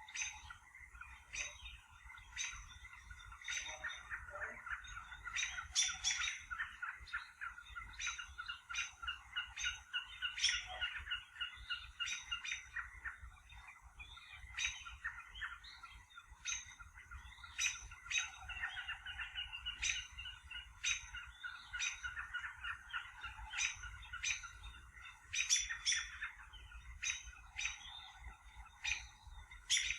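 Many birds chirping and calling at once, a busy, continuous chatter of short notes with frequent sharp high chirps.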